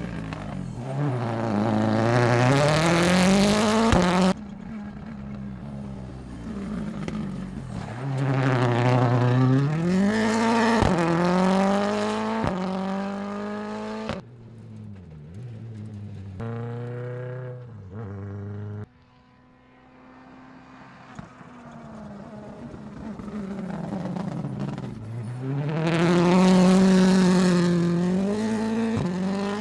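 M-Sport Ford Puma Rally1 hybrid rally car's turbocharged 1.6-litre EcoBoost four-cylinder revving hard in repeated bursts of acceleration, the pitch climbing and falling through the gears. The sound cuts off suddenly between passes, about four seconds in and again about nineteen seconds in, and builds back to its loudest near the end.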